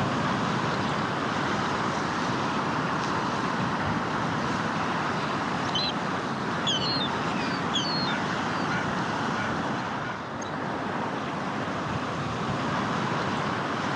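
Steady wash of waves and wind along a lakeshore, with a few short high bird chirps about six to eight seconds in.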